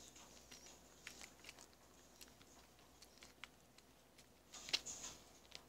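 Slime being worked in the hands, faint: scattered small clicks and pops, with a louder crackling squelch near the end.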